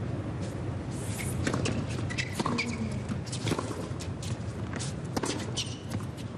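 Scattered clapping from a small tennis crowd, starting about a second in and dying away near the end, over a steady low rumble of wind on the microphone.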